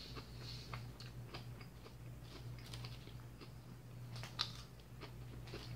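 Fork clicking and scraping against a clear plastic salad container as salad greens are speared, a string of light irregular clicks with one sharper click about four seconds in.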